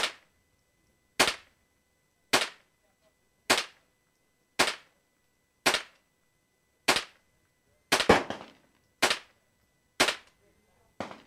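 Rifle shots fired in steady succession, about a dozen in all at roughly one a second, with two shots close together about eight seconds in. Each report fades out quickly.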